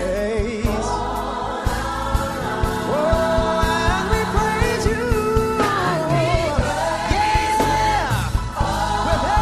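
Gospel praise-and-worship song: a choir and a lead singer holding long, wavering sung lines over a band with bass and a steady beat.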